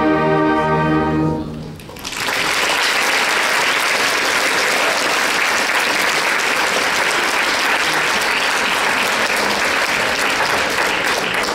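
A concert band of woodwinds, brass and percussion holds a sustained final chord, which cuts off about a second and a half in. Audience applause starts about two seconds in and carries on steadily.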